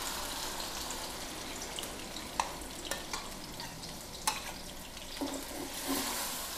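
Ground onion frying in hot ghee in a pot, a steady sizzle. A few sharp clinks of the stirring spoon against the pot come through it.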